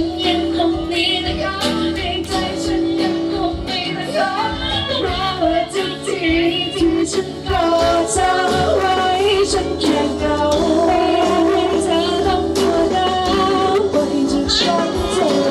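A man and a woman singing a Thai pop song as a duet into microphones, with instrumental accompaniment.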